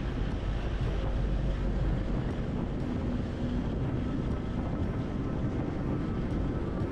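Steady riding noise from a motor scooter at cruising speed: a low wind rumble on the microphone over the engine and tyre hum.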